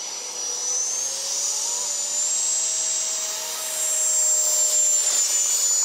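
The 70 mm electric ducted fan of an RC jet-powered hydroplane boat, running at speed with a high-pitched whine. The pitch rises about a second in and then holds. It is loudest around four to five seconds in as the boat passes close, over a hiss.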